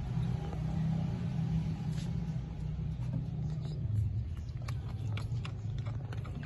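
A steady low rumble throughout, like a motor vehicle running nearby. From about four and a half seconds in come quick small clicks and smacks, which fit a baby macaque sucking milk from a feeding bottle.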